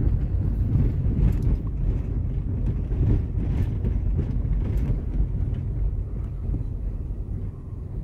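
Car driving along a rough back road: a steady low rumble with scattered knocks, fading toward the end.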